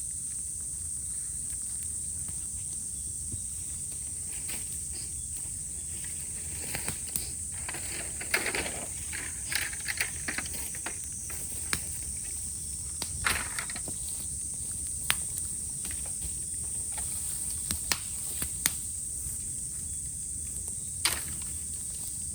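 Cicadas buzzing in a steady high chorus, with burning bamboo crackling over it and giving scattered sharp snaps and pops from about a third of the way in.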